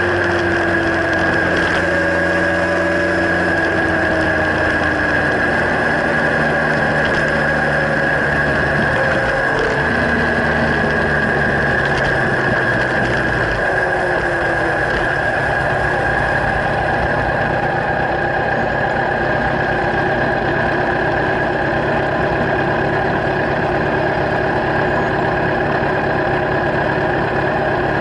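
Kawasaki Z1000's inline-four engine running through LeoVince slip-on exhausts, a steady exhaust note with small shifts in pitch in the first half.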